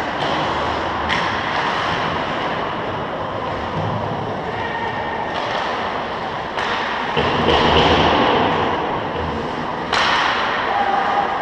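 Ice hockey play in a rink: a steady wash of skating and play noise that swells after about seven seconds, with three sharp knocks, about one, six and a half and ten seconds in.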